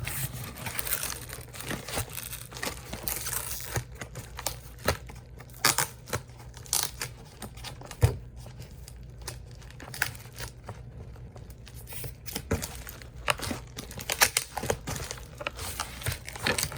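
Packing tape being peeled and torn off a cardboard shipping box, with crinkling of the packaging and irregular scratches and knocks.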